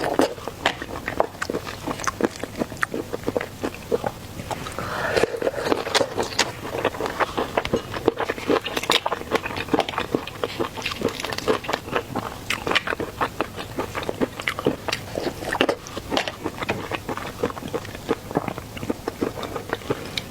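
Close-up eating of shellfish: shells cracking and crunching between biting and chewing. It comes as a dense, irregular run of sharp clicks and crackles.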